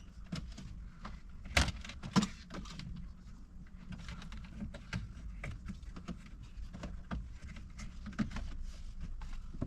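Rubber door seal being pressed and knocked back onto its flange by hand and with a tool: scattered clicks and rubbing handling noises, with two sharp knocks about one and a half and two seconds in.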